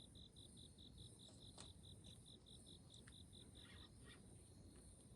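Faint insects calling: one sings a regular high chirp, about six pulses a second, that stops about four seconds in, over a steady higher-pitched trill. A few faint clicks in between.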